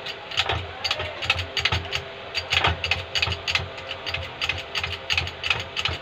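Hydraulic bottle jack being pumped by hand: the pump handle and plunger clicking and clanking in a steady rhythm, about two strokes a second, as the jack's ram builds pressure in the press.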